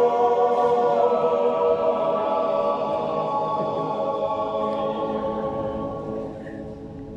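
Small yodel choir singing a Zäuerli, the wordless Appenzell natural yodel: several voices hold a long, steady chord that slowly dies away near the end.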